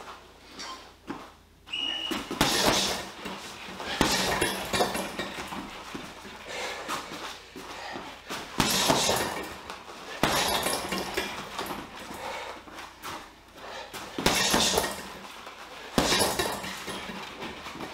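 Boxing gloves punching a Leone heavy bag in short combinations: a quick flurry of thuds every few seconds.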